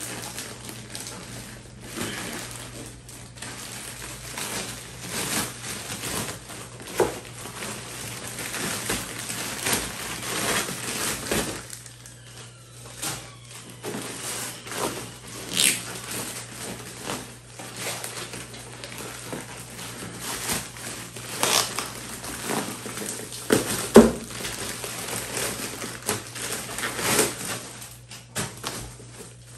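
Plastic shipping mailer bags being handled and crinkled, a dense irregular rustling and crackling with many sharp crackles, the loudest near the end. A steady low hum runs underneath.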